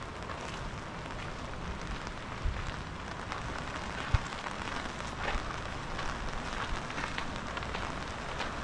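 Rain falling steadily, an even hiss with many small irregular drop ticks, and a single low thump about four seconds in.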